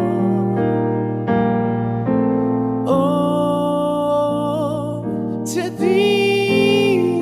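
Slow gospel worship song: a male voice sings long held notes with vibrato over soft, sustained piano chords.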